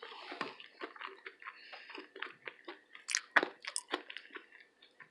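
A person chewing food up close to the microphone: a run of small irregular wet clicks and smacks from the mouth, with a few louder ones about three to four seconds in.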